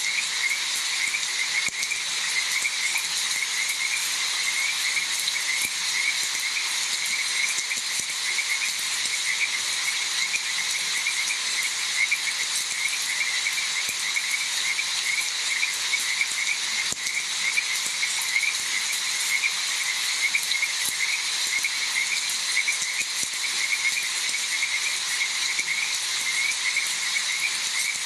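A chorus of frogs calling, many quick repeated croaks overlapping, over an even hiss of falling rain.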